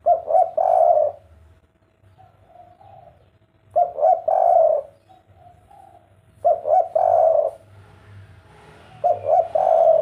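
Spotted dove cooing its three-note 'kuk 3' song, the loud phrase repeated four times about every two and a half to three seconds, with softer coos between the phrases.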